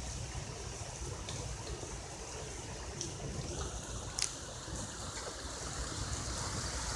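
Steady rush of heavy thunderstorm rain and running water, with a single sharp click about four seconds in.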